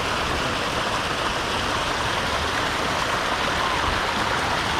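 Steady rush of running water splashing into a fish tank, from the tank's filter return.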